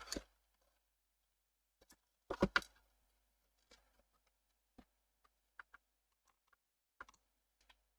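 Scattered light clicks and taps from handling a power-supply circuit board, with a louder cluster of two or three clicks about two and a half seconds in.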